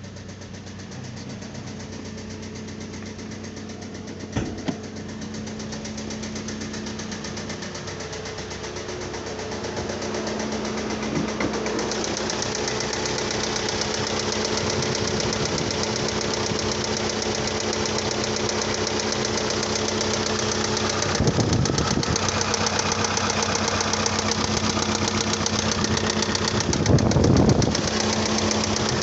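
A 2012 Kia Sorento's engine idling with a repeated knock, a fault that sets no code on an OBD scanner. It grows louder about twelve seconds in, with two brief louder bursts of noise in the second half.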